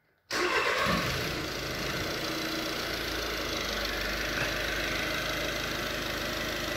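VW 1.6 TDI CAYC four-cylinder common-rail diesel starting up about a third of a second in and settling straight into a steady idle. It runs on a freshly fitted, coded second-hand cylinder 2 injector, with all four injectors' quantity deviations close together and within spec.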